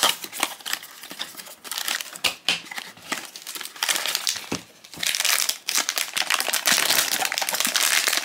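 A small cardboard blind box being opened, with short clicks and scrapes of its flaps, then a crinkly foil blind-bag being pulled out and handled, crinkling steadily from about five seconds in.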